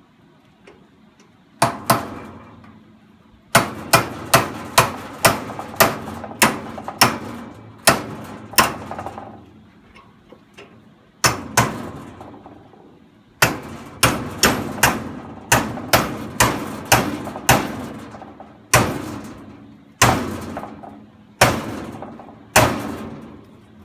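Hammer blows on a metal antenna radial rod clamped in a bench vise, flattening its end. The blows are sharp and ringing. They come in quick runs of about two a second, with short pauses between runs and slower single blows near the end.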